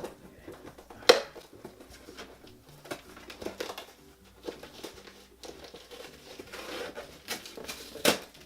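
Laptop box being opened by hand: cardboard and plastic packaging rustling and crinkling, with a sharp knock about a second in and another near the end.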